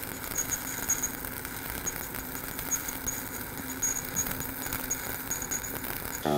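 Steady crackling hiss of a stick-welding arc burning on a 7018 electrode as a vertical-up fill pass is run on steel plate.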